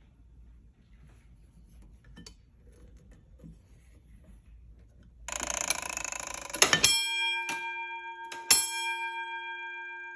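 Holtzer Cabot fire alarm bell: about five seconds in, a brief whirring mechanical rattle, then the bell is struck and rings with a long decay, a second strong strike about a second and a half later.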